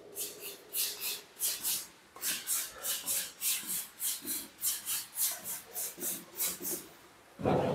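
Paintbrush scrubbing sand-textured decorative paint over a wall in short, quick strokes, about three a second. A louder sound cuts in near the end.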